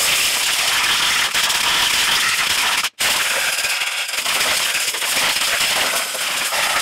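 Loud hiss of a compressed-air blow gun blasting grass clippings and debris out from under a lawn mower deck, with a momentary pause about three seconds in.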